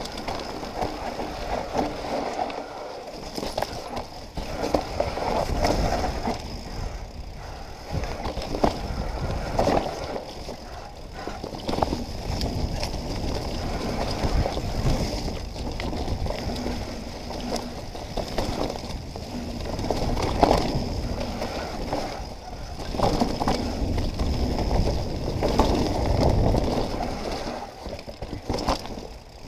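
Mountain bike riding fast down a dirt forest trail: tyres rolling and crunching over soil, leaves and roots, with the bike rattling and knocking over bumps. A heavy low rumble that swells and fades comes from wind on the microphone.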